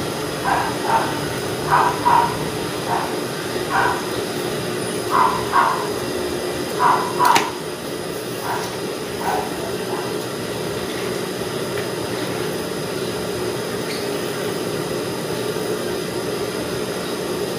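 A dog barking repeatedly, mostly in pairs of short barks, which stop about ten seconds in, over a steady machine hum.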